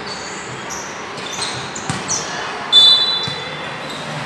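Basketball game sounds: sneakers squeaking on the court and the ball bouncing, with one short, loud shrill squeak about two-thirds of the way in.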